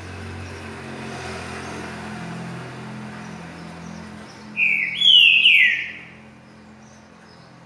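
A songbird sings one short, loud phrase of about three quick sweeping notes about halfway through, over a faint low hum.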